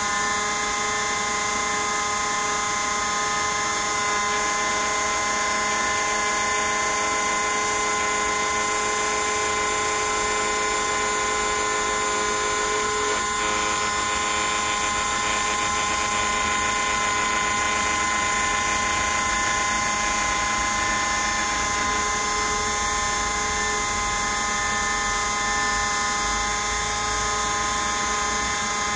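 Small CNC router spindle whining steadily as its bit cuts into a block of white foam, with the high hum of the machine's motors. One of the tones drops out about halfway through as the cut moves on.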